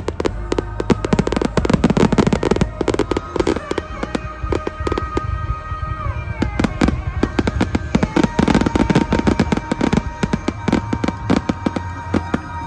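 A dense barrage of aerial firework shells bursting and crackling, many sharp reports each second, with music playing underneath.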